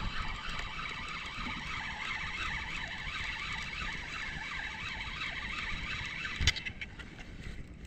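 Spinning reel whirring as a hooked fish is played and reeled in, a steady fluttering run that stops with a sharp click about six and a half seconds in.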